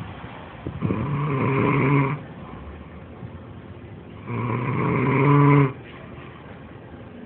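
Male domestic turkey gobbling twice, each call a little over a second long, about three seconds apart.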